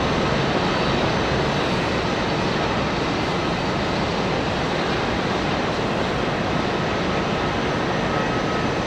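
Jet engines of a taxiing Airbus A330-300 at low thrust: a steady rushing noise with a faint high whine.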